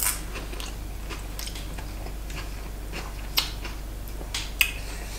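A person chewing a mouthful of raw tuna sashimi with radish, with faint scattered wet mouth clicks. A few sharper clicks come later, as chopsticks pick food from the plate.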